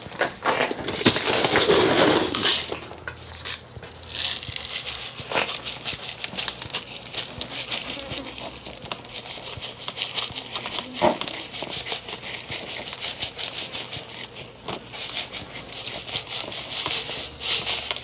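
Salt poured from a plastic container into a striped bass's belly cavity and packed in by hand to cure the fish: a steady gritty crackle of grains. It is louder in the first couple of seconds, and there is one sharper click partway through.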